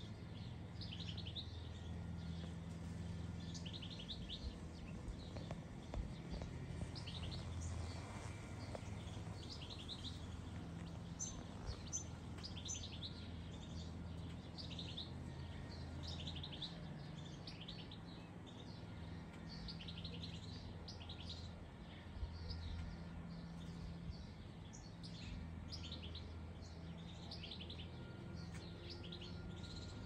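Small songbirds chirping and twittering, many short high calls in quick runs throughout, over a steady low hum.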